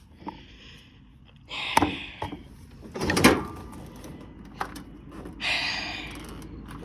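A few clunks and knocks as a battery-start mower is worked at, the loudest about three seconds in, with no engine cranking or starting: a dead battery, as the owner takes it.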